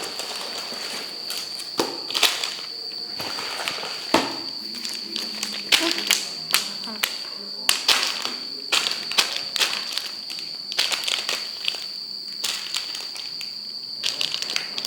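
Irregular clicks, taps and rustles of things being handled, over a steady high-pitched whine.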